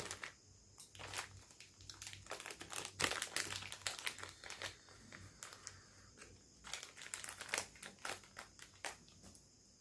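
Soft crinkling and crackling handling noise, in two irregular bunches of rapid small crackles with a pause between them.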